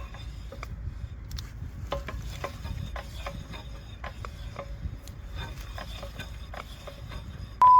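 Irregular light clicks and taps of metal parts being handled at a car's dismantled wheel, over a low steady rumble. A loud steady censor beep tone cuts in at the very end.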